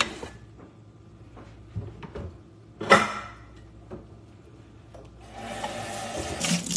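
Kitchen handling sounds: a knock at the start, a louder clatter or thud about three seconds in, then rustling of a plastic bag over the last second and a half.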